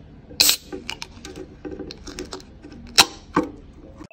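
Objects being handled up close: an irregular string of light clicks and knocks, with sharp ones about half a second in, at about three seconds and just after.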